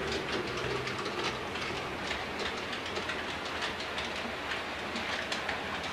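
Model train running on the layout: a steady rolling noise with many light, irregular clicks of the wheels over the rail joints.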